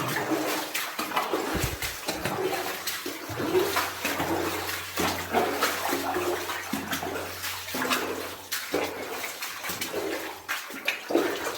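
Water splashing and sloshing in irregular strokes as someone wades through a flooded mine passage, with a faint steady low hum underneath. The splashing stops abruptly right at the end.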